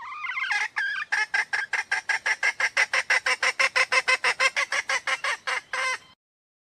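Red junglefowl hen calling: about a second of drawn-out opening notes, then a fast even run of short clucks, about five or six a second, that cuts off suddenly after about six seconds.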